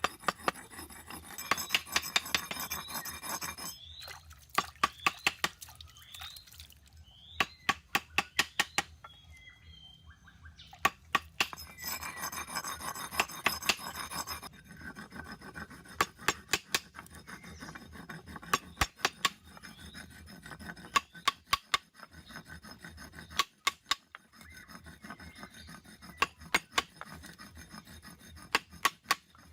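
Hand filing or scraping of cast copper. Stretches of rasping strokes alternate with runs of quick, sharp metallic clicks.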